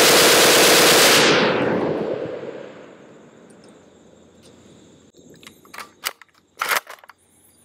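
Short-barrelled HK51 in 7.62×51mm NATO firing on full automatic, a continuous burst that ends about a second in and leaves a loud echo fading over the next two seconds. Near the end come a few sharp metallic clicks and clacks as the gun is handled and its cocking handle worked.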